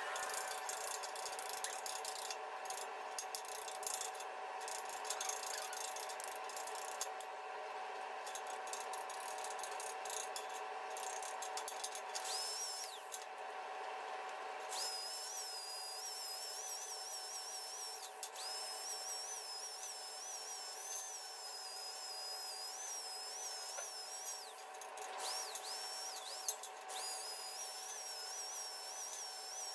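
Steel parts being cleaned up with tools: clicking and rattling for about the first twelve seconds. Then a small high-speed power tool whines, its pitch dipping briefly each time it bears on the work.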